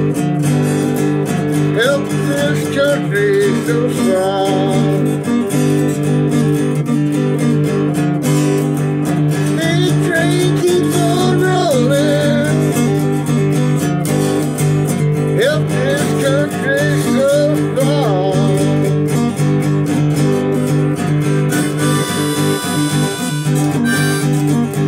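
An acoustic guitar is strummed steadily while a neck-rack harmonica plays melody phrases over it. The harmonica comes in three or so stretches of wavering, bending notes, with the guitar carrying on alone between them.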